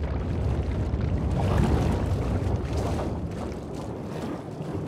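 Underwater ambience sound effect: a steady, low rushing of water that swells a little about two seconds in and eases off toward the end.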